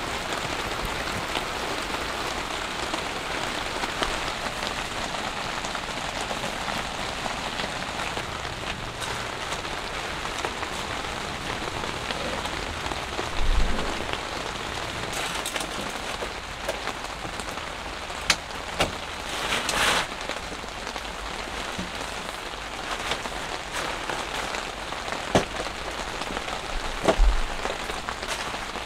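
Steady rain falling on the tent, with several sharp knocks and thumps of gear being handled and set down, the loudest about halfway through and near the end.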